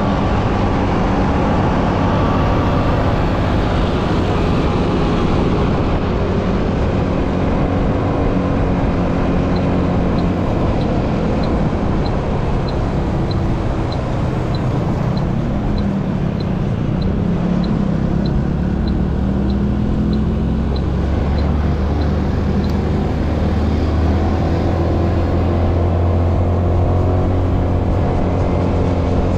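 A vehicle driving on the road: steady engine hum and road noise, with the engine's low hum growing stronger a little past halfway. A faint, even tick comes a bit less than twice a second for about thirteen seconds in the middle.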